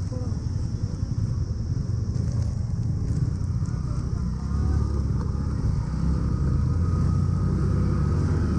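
Motorcycle engine running at low revs, a steady low rumble that grows a little louder about halfway through.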